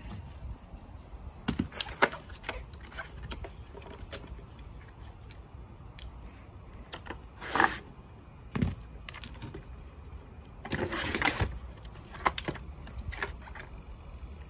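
Scattered clicks, knocks and rustles of a 12-volt car battery and its cardboard box being handled: a louder rustle about seven and a half seconds in, a sharp knock just after, and a longer rustling scrape around eleven seconds in, over a low steady background rumble.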